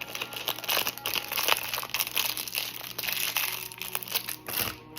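Packaging crinkling and rustling continuously as an item is unwrapped by hand, with many irregular small crackles that stop just before the end.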